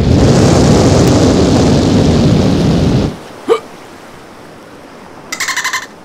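Cartoon fire-breath sound effect: a loud rushing blast of flame for about three seconds that cuts off suddenly. It is followed by a quick rising whistle-like glide and, near the end, a short burst of rapid pulsed chirping.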